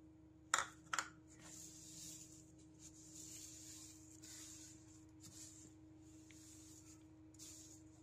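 Plastic spatula stirring sesame seeds into mashed banana in a plastic bowl: faint scraping and rustling of the seeds, with two sharp clicks about half a second and one second in. A faint steady hum runs underneath.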